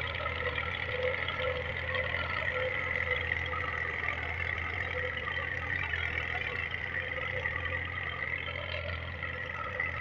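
Massey Ferguson 240 tractor's three-cylinder diesel engine running steadily under load as it pulls a ridging implement through the soil.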